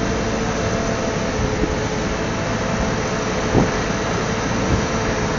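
A crane's engine running steadily under a constant whine, with two faint knocks, one about midway and one near the end.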